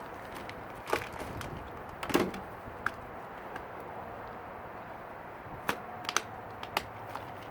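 Scattered short clicks and light knocks of fishing gear being handled, the loudest about two seconds in, over a steady background hiss.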